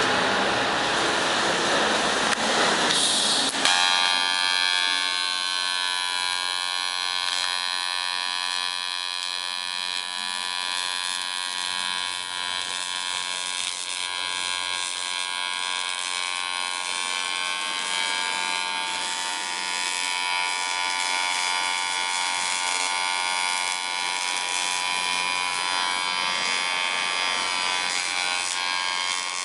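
A broad hiss for about the first three and a half seconds, then a small electric motor running steadily with a high-pitched whine.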